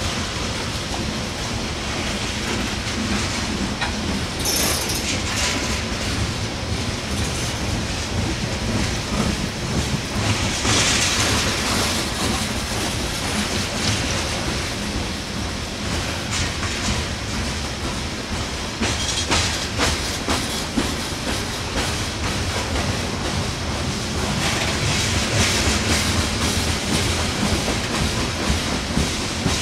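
Loaded coal cars of a heavy freight train rolling slowly past on a grade: a steady rumble of steel wheels on rail, with clicking as the wheels pass over rail joints.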